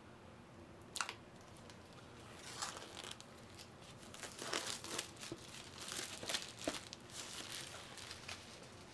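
Plastic shrink wrap being torn and crinkled off a board game box: a sharp click about a second in, then a run of irregular crackling rustles.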